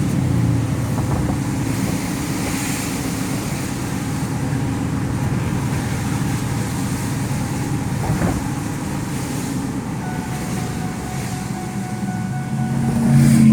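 Car driving, heard from inside the cabin: a steady low rumble of engine and road noise, with a short knock about eight seconds in.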